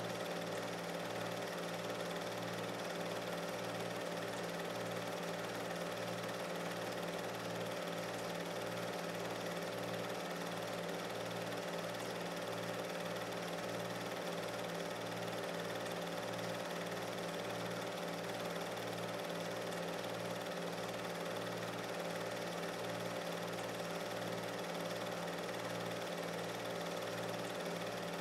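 Film projector running: a steady mechanical whir and hum with a low throb pulsing about twice a second. None of the on-screen hammer throwing is heard.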